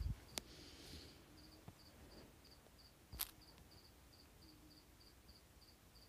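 Near silence: faint background with a cricket chirping softly about three times a second, and a short click about three seconds in.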